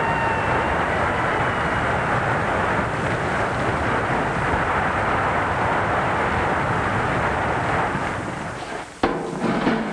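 Steady rushing noise of a big fire being fought with hose jets, with a fire siren's wail fading out in the first two seconds. The rush dies away near the end, and a sharp knock and some clattering follow.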